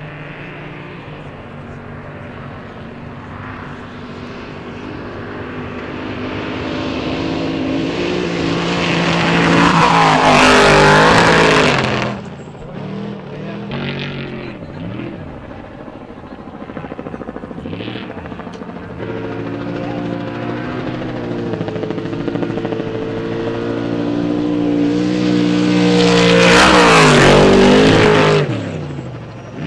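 Trophy Trucks' race engines at full throttle as two trucks speed past one after the other. Each pass builds to a loud peak with the engine pitch rising and then dropping, and ends abruptly. The first comes about a third of the way in and the second near the end.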